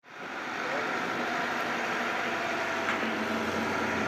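Steady engine-like drone mixed with outdoor noise, fading in at the very start.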